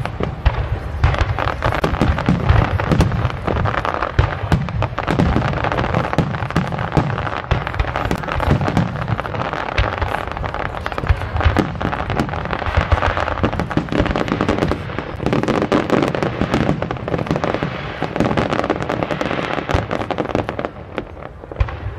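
Aerial fireworks shells bursting and crackling, many bangs in quick succession; the barrage eases slightly near the end.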